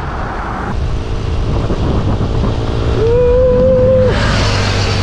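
Road traffic passing a moving bicycle, over a steady low wind rumble on the microphone. There is a brief steady tone about three seconds in, and a vehicle rushes past near the end.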